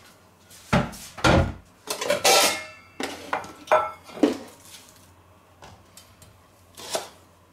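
Kitchenware being set down on a wooden counter board: knocks and clatter, with a stainless steel bowl ringing briefly. Lighter knife strokes on a wooden cutting board follow near the end as spring onions are sliced.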